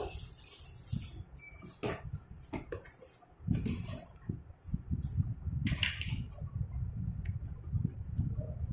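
Slate pencils clicking and clattering against one another as a hand sorts through a loose pile of them, in scattered sharp knocks over a low rumble.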